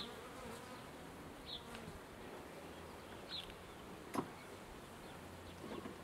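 Honeybees from a mobile apiary's hives buzzing, a steady low hum. A few short high chirps come every second or two, and a single sharp click sounds a little after four seconds in.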